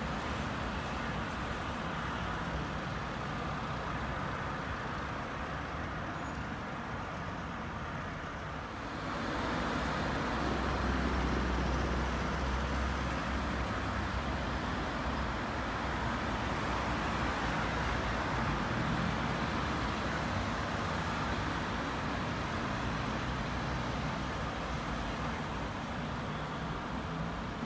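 City street traffic: a continuous wash of cars and other vehicles going by. It grows louder about nine seconds in, with a deep rumble for a few seconds, then settles a little.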